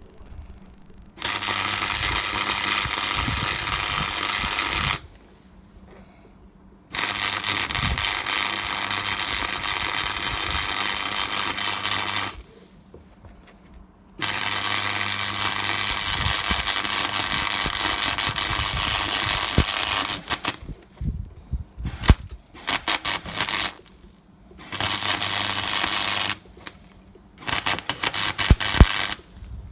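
Electric arc welder laying a seam weld along a steel patch in a Land Rover Series 2A chassis: a steady hissing crackle in runs of several seconds with short pauses between, then shorter stop-start runs near the end.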